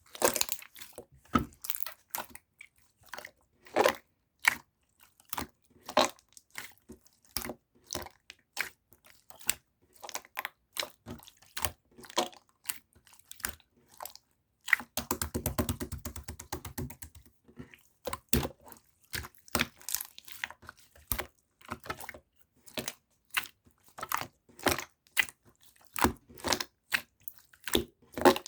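Irregular sharp clicks and crunches, close up, with a rapid rattling run of clicks lasting about two seconds about halfway through.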